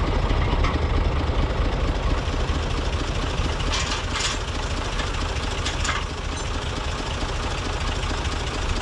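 Tractor diesel engine running steadily, with a fast low throb. Two short hisses break in about four and six seconds in.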